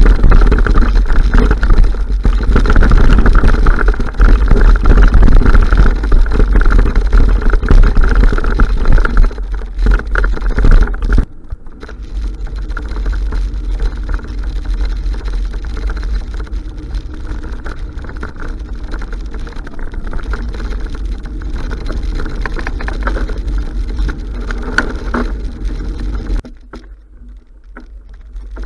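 Wind buffeting the microphone of a bike-mounted camera while riding a mountain bike over trail, a loud rumbling noise with rattle from the bike. The noise drops suddenly in level twice, about eleven seconds in and near the end.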